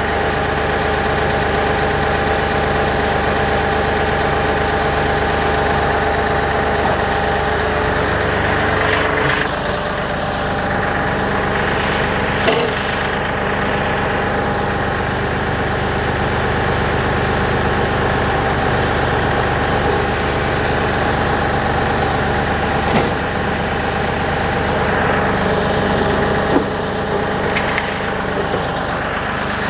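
Kioti DK series tractor's diesel engine running steadily. Its note changes about nine seconds in, and a few sharp knocks come through later on.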